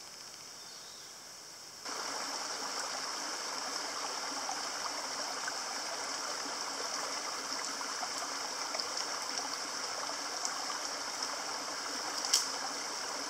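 Shallow, rocky mountain creek running and trickling, coming in suddenly about two seconds in. A steady high-pitched hiss runs under it, and there is a single sharp click near the end.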